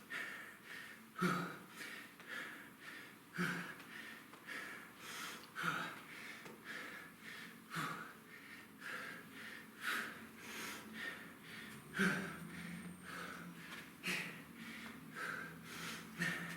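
A man breathing hard through a set of side-plank knee tucks: short, forceful exhales about once a second, some with a slight grunt.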